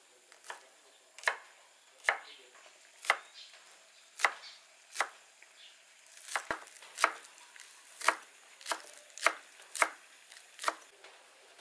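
Kitchen knife chopping green onions on a wooden cutting board: separate sharp knocks of the blade hitting the board, roughly one a second, coming a little quicker in the second half.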